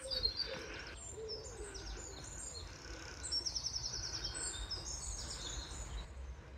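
Garden songbirds singing: many short high chirps and whistles, with a quick trill about three and a half seconds in, over a low steady rumble.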